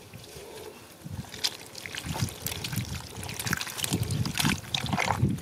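Hands scooping wet mud and small stranded fish in a shallow muddy puddle: irregular squelches, splashes and trickling water, growing busier after about a second and a half.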